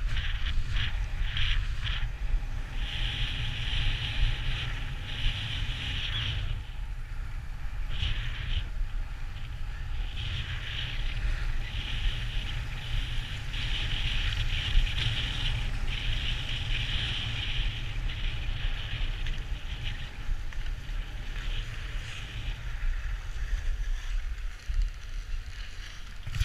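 Wind rushing over the microphone while skiing downhill, with the hiss and scrape of skis on packed snow that comes and goes as the skier turns.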